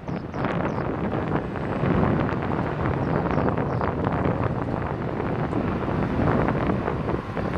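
Wind buffeting the camera's microphone in uneven gusts, over a low rumble.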